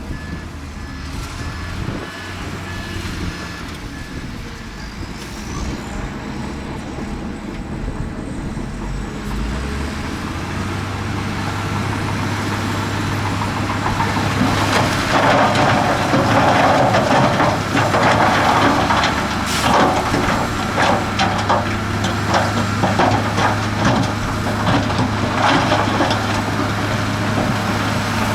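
Heavy diesel earthmoving machinery running. The engine note grows stronger about a third of the way in, and from about halfway loud, irregular clattering and rattling of rock and dirt being moved joins it.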